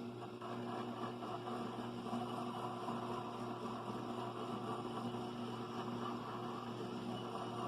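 A small electric motor running steadily, with a constant hum and a light hiss, a little louder just after the start.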